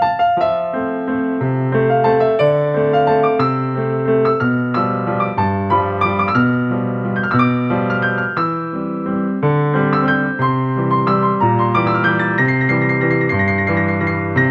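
Background piano music: a melody over a bass line, played at a steady moderate pace.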